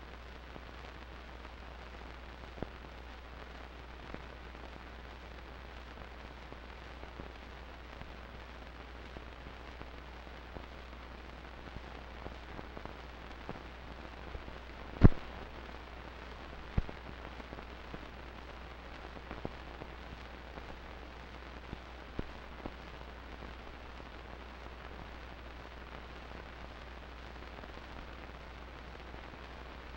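Steady low hum and hiss with scattered crackling clicks, the loudest a single sharp click about halfway through. There is no band music or crowd sound: this is the noise floor of a silent home-movie transfer.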